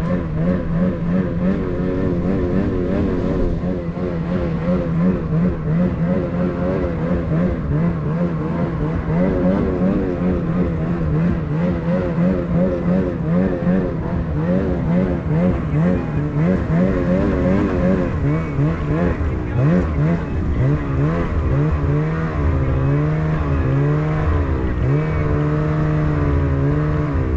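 A small gasoline engine running steadily under load, its pitch rising and falling in slow waves as the revs swing.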